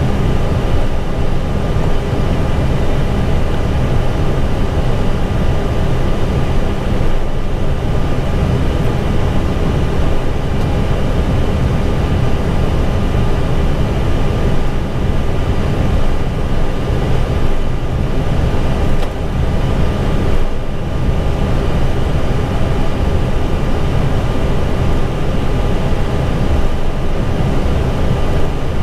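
Steady noise inside an Airbus A320 cockpit while taxiing after landing. A constant low rumble from the engines at idle and the airflow, with faint steady whines on top.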